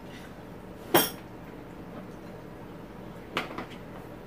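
Tableware clinking at a meal: one sharp, ringing clink about a second in, then a softer clatter of two or three knocks about three and a half seconds in.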